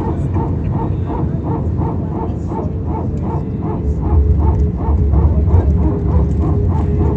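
Airbus A320 power transfer unit (PTU) running: the loud, rapid barking pulses of the hydraulic pump, about three a second, over the low rumble of the aircraft, which gets louder about four seconds in.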